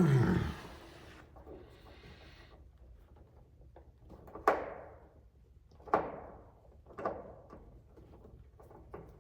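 A heavy thump at the start, a short hiss, then three sharp knocks about a second apart, each with a short ringing tail.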